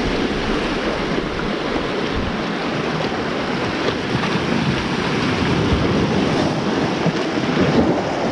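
Sea waves surging and breaking against the rocks just below, a continuous wash of surf, with wind on the microphone.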